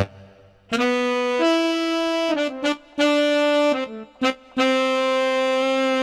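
Sampled saxophone preset of a KORG Triton software synthesizer playing a slow melody one note at a time, mostly long held notes with a few short ones between, beginning about a second in.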